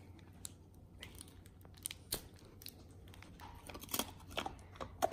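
A hard, iced bone-shaped dog biscuit being snapped into pieces by hand, with the crinkle of its cellophane wrapper: a scatter of sharp cracks and crackles.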